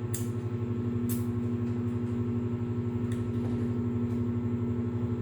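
A steady mechanical hum with a fast, even pulse, and a few faint clicks over it.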